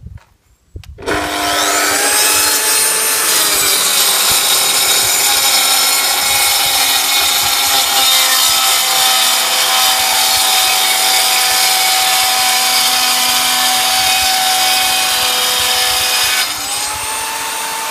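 Mafell PSS 3100 SE plunge-cut saw starting up about a second in, its motor whine rising, then cutting a Cembrit Cembonit fibre cement board as it travels along its guide rail. The pitch dips slightly under load as the blade bites and holds steady through a long, loud cut. Near the end it rises again and the sound gets quieter as the blade runs free at the end of the cut.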